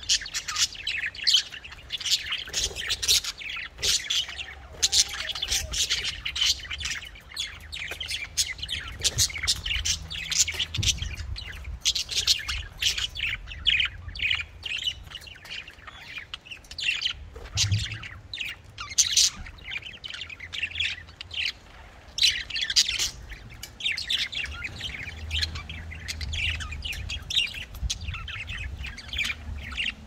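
Several budgerigars chirping and chattering in quick, overlapping calls with sharp squawks mixed in, with no break. A low hum runs underneath.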